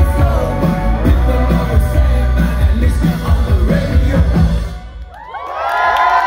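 Live rock band with lead singer and electric guitar playing the final bars of a song, stopping suddenly about five seconds in; the audience then cheers and whoops.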